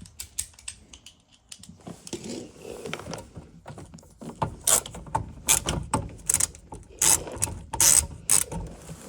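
Screwdriver ratcheting as a screw is driven in to fasten a dishwasher's replacement control board: a run of sharp, irregular clicks that gets louder and closer together from about halfway in.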